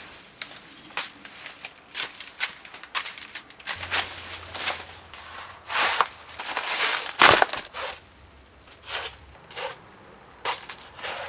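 Banana plant leaves and stalks being pulled and torn by hand: an irregular run of sharp cracks and snaps, with a denser stretch of crackling and tearing about six to seven and a half seconds in.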